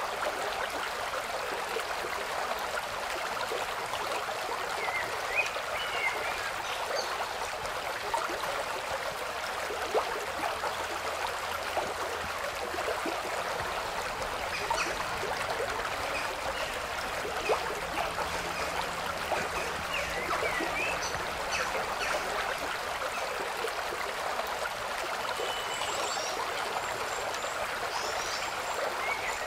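Steady rush of running water, like a small stream, with faint short high chirps scattered through it.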